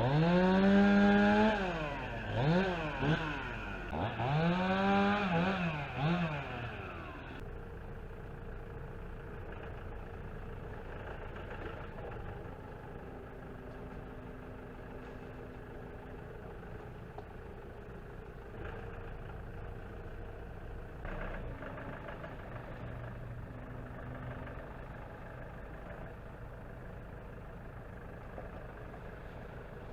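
Chainsaw revved up hard twice, its pitch rising and falling with each squeeze of the throttle. After about seven seconds it drops to a much quieter, steady engine hum.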